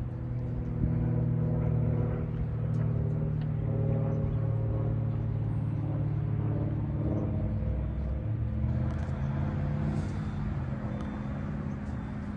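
An engine running steadily at idle, a low hum made of several steady pitched tones.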